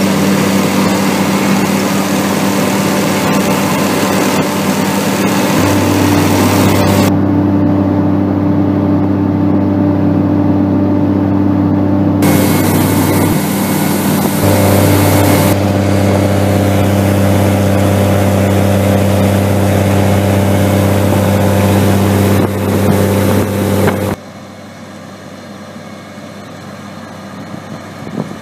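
Carrot harvester running: a loud, steady engine drone with machinery noise, changing abruptly several times. Near the end it drops to a quieter, more distant engine hum.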